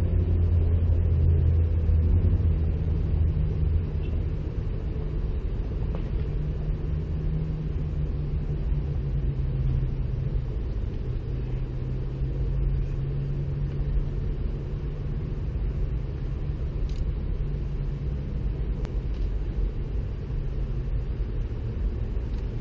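Steady low engine-like rumble with a hum whose pitch drifts slowly and slightly, with no distinct strokes or knocks.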